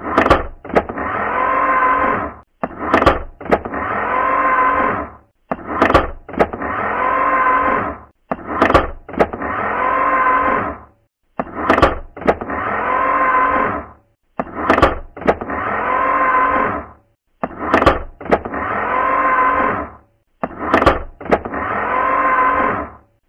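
Camera sound effect repeating about every three seconds, eight times: a sharp shutter click, then a loud, steady-pitched motor whir lasting about two seconds, as of a film advance or winder.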